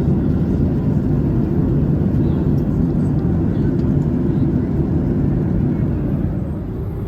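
Steady low rumble of a vehicle in motion, heard from inside the cabin.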